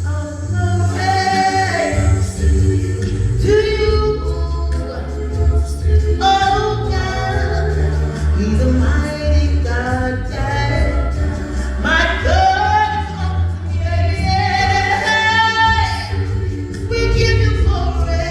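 Live gospel song: singers over a band with a strong, steady bass line.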